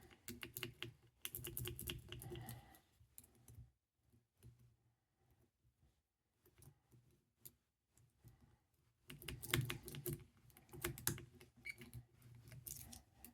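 Lock pick and tension tool working in the small keyway of a gun trigger lock: fast, irregular light metallic clicking and rattling in two busy spells, with only a few scattered clicks in between. The lock keeps wobbling on the trigger, which makes the picking difficult.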